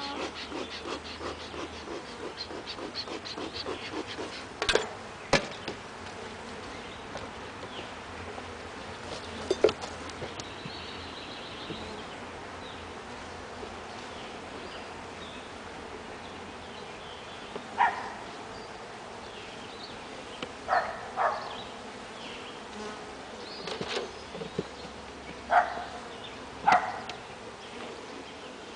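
Honey bees buzzing steadily around an open hive, with a few sharp knocks and clicks of wooden frames and hive parts being handled and shifted in the box.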